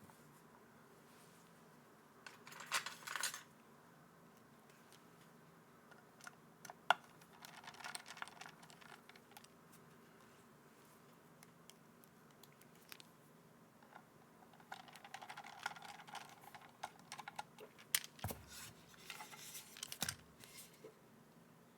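Small plastic clicks and clatter from mechanical keyboard parts being handled, in a few short clusters rather than steady typing, with two dull thumps near the end.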